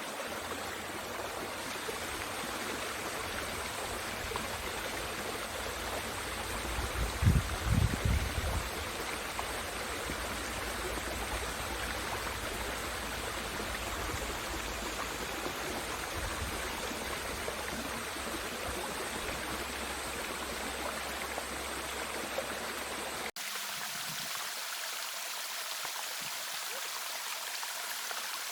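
Mountain stream water rushing steadily over rocks. A brief low rumble about seven seconds in, and the sound changes abruptly near the end, as if cut to another take.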